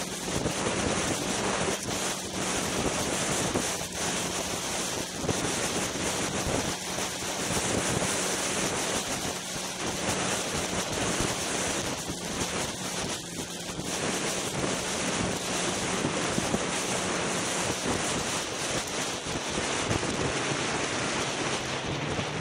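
Polaris Rush Pro-R two-stroke snowmobile riding along at steady speed, its engine drone under heavy wind rush on the microphone. The engine note drops a little near the end as the sled slows.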